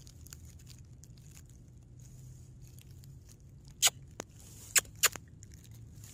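Quiet background with a steady low hum and a faint high hiss, broken by four short sharp clicks in quick succession about two-thirds of the way in.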